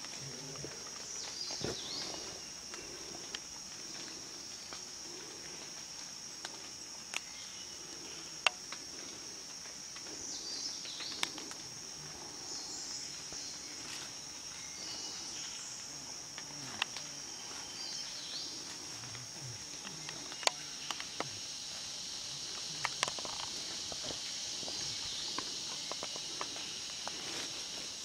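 A steady, high-pitched drone of forest insects, with rustling and scattered sharp snaps of footsteps moving through leaf litter and undergrowth.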